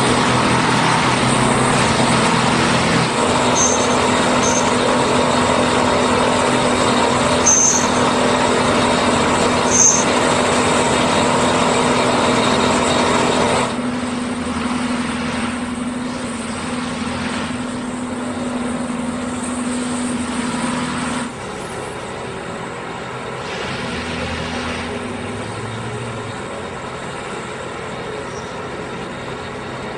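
Diesel engine of a railway track maintenance machine running steadily with a low hum. The sound drops noticeably in level about halfway through and again a few seconds later, and a few short high chirps are heard in the first third.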